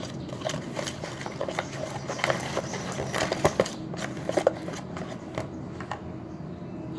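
Irregular small plastic clicks and knocks of a glue bottle being handled while its stubborn cap is worked open.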